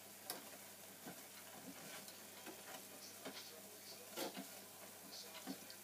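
Puff puff dough balls frying in hot oil in an electric deep fryer, a faint sizzle with irregular light taps and scrapes as a utensil turns them in the fryer basket.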